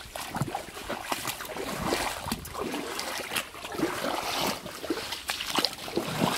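Shallow water splashing and trickling in irregular strokes, as from someone wading through it.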